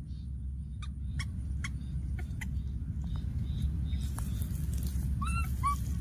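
A baby monkey gives two short, squeaky calls that curve in pitch, near the end. Under them are scattered sharp clicks and crackles and a steady low rumble.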